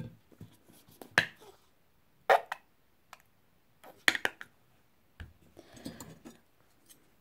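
Plastic flip-top cap of a sauce bottle being worked open: three sharp clicks over a few seconds, with softer handling noise between.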